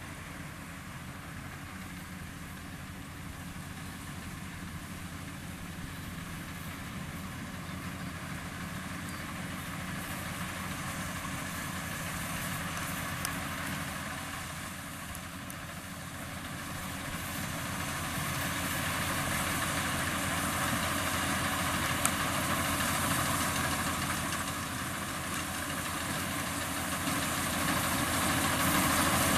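Combine harvester's diesel engine running steadily, growing louder as the machine comes closer, loudest near the end.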